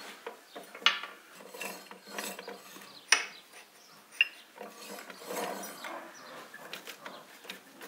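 Steel gears and shift rod inside an open U-445 tractor gearbox being slid and turned by hand, with sharp metal clicks (the loudest about 1 s and 3 s in) and stretches of scraping metal as the gear positions are checked.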